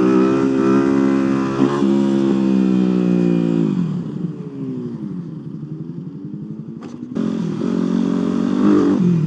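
Single-cylinder supermoto motorcycle engine heard from on the bike, held at steady revs for a few seconds, then falling away as the throttle closes. It runs quieter for about three seconds, then comes back loud after a short click, with a brief dip near the end.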